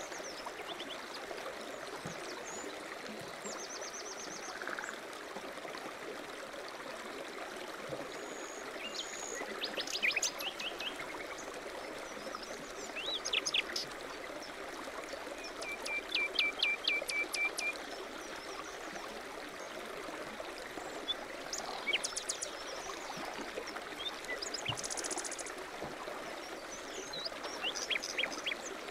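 Stream running steadily, with songbirds chirping and trilling over it in short scattered phrases, including one run of quick repeated notes about halfway through.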